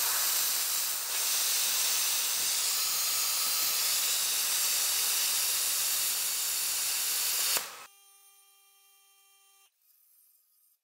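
Everlast Hurricane 220 plasma cutter hissing steadily as its arc cuts a steel fishplate, cutting off suddenly after about eight seconds.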